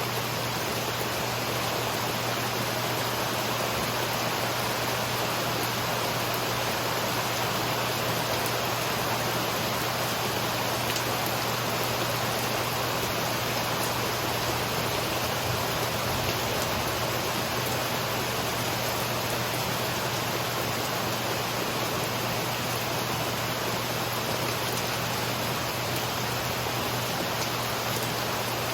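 Rain falling steadily, an even hiss with no breaks and no thunderclaps.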